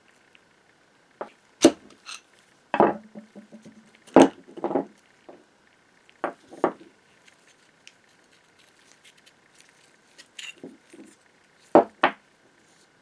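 Steel gears and shaft of a Polish PWWE10 two-speed hand drill being taken apart by hand: scattered metallic clinks and knocks as the shaft is pulled out and the gears are lifted off and set down on a concrete floor, one knock ringing briefly. A faint steady high hum runs underneath.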